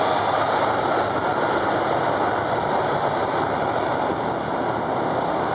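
Boeing 757's twin jet engines running at high power on the runway: a loud, steady rush of engine noise.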